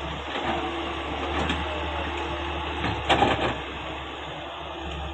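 Caterpillar 385C hydraulic excavator working, its engine and hydraulics running with a steady hum and a dense mechanical clatter. A louder knock comes about three seconds in.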